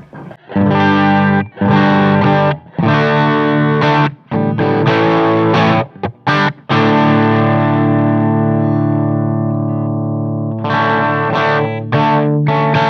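Electric guitar on its bridge P90 pickup played through an Amp Maker P1800, an 18-watt Marshall-clone amp, in overdriven chords with a honky midrange. Several short chords with brief stops, then one chord left ringing and slowly fading for about four seconds, then more chords near the end.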